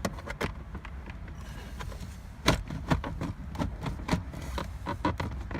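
Plastic dashboard trim around a 2005 Toyota Corolla's radio clicking and scraping as the faceplate is pried and worked loose, with one louder click about two and a half seconds in.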